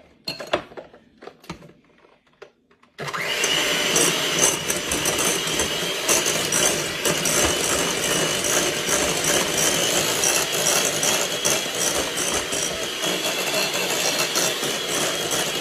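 A few light clicks, then about three seconds in an electric mixer starts up and runs steadily with a constant motor whine, beating softened cream cheese and butter together.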